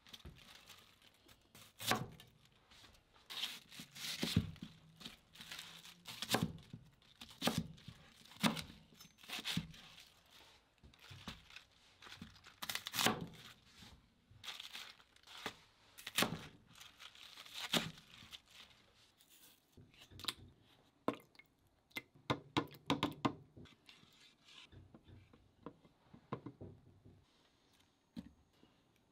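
Crisp napa cabbage and bok choy being cut up on a plastic cutting board: a series of crunching snaps, each with a knock on the board, about one a second. Near the end come fainter handling sounds as the pieces are laid in a ceramic pot.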